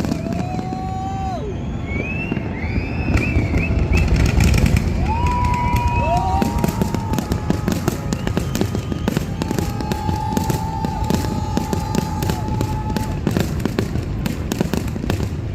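Fireworks display bursting and crackling in a rapid, continuous barrage over a low rumble, with several drawn-out whistling tones that glide and hold.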